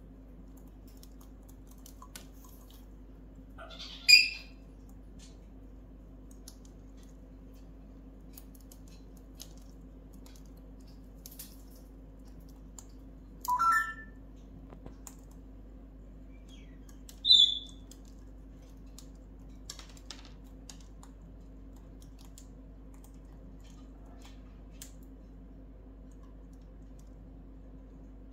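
Timneh African grey parrot giving three short calls: a sharp squawk about four seconds in, a lower rising call around fourteen seconds, and a brief high whistle a few seconds later. Between them come scattered faint clicks of its beak on the wooden toys.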